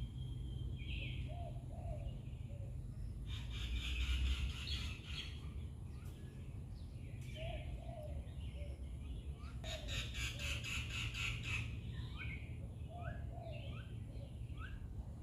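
Several birds chirping and calling, with short repeated notes and two longer rapid, rattling trills at about three and ten seconds in, over a steady low rumble.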